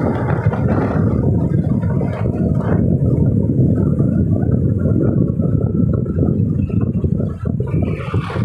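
Motor scooter ridden at road speed: wind buffets the microphone in a loud, steady low rumble mixed with the scooter's engine and tyre noise.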